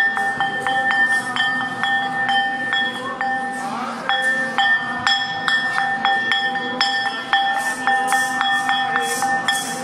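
A metal bell struck over and over, a few strikes a second, each ring carrying into the next, with a short lull about four seconds in. A shaken jingling joins in near the end.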